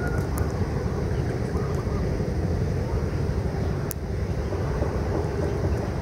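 Steady low rumble with no distinct pitch, and a single sharp click about four seconds in.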